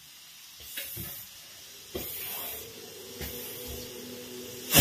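Pressure cooker venting steam as it comes up to pressure: a hissing that swells in short puffs about once a second, then breaks into the loud full whistle blast right at the end.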